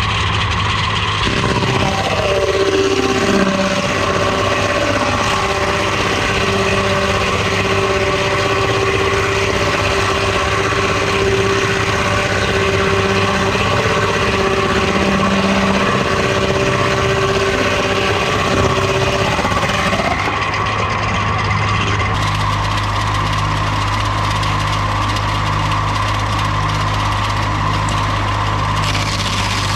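Engine-driven lumber-milling machinery running steadily. A couple of seconds in its tones drop in pitch and hold lower until they rise back near 20 s, as a machine under load would. Around 22 s the sound changes to a steady run with a pulse about once a second.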